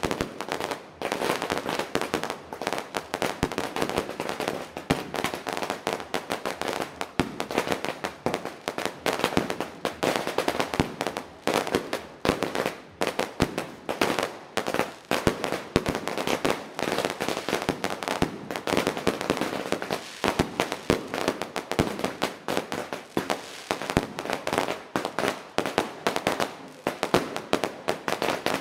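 Electronically fired fireworks display going off in a rapid, unbroken volley: shell after shell launching and bursting, many sharp bangs a second with crackle between them.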